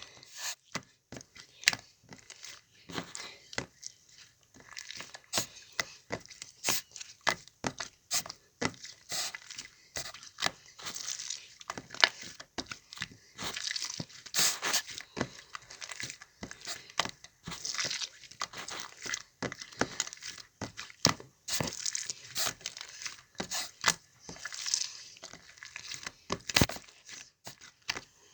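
Slime being squished and stretched by hand, making a continuous run of irregular clicks, pops and crackles.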